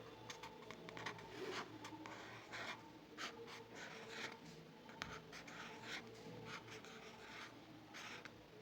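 Strokes of a drawing tool scratching across paper, short and irregular, about one or two a second, over a faint steady hum.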